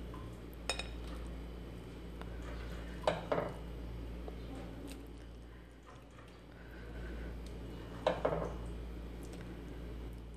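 A ladle clinking and scraping against a stainless steel pot and a glass serving bowl while thick dal is scooped out, in three short clusters of knocks: a little under a second in, around three seconds in and around eight seconds in. A low steady hum runs underneath.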